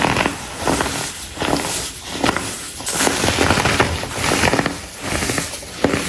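Compressed baking soda blocks being crushed, giving a dense, loud crackling crunch that comes in repeated squeezes about once a second.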